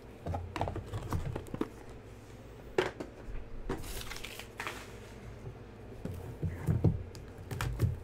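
Hands handling a trading-card box and a plastic card holder on a table: scattered clicks and knocks as things are set down and picked up, with brief crinkling of plastic wrap near the middle.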